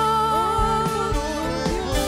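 A woman singing a worship song into a microphone, holding a long note through the first half, over band accompaniment with a steady bass.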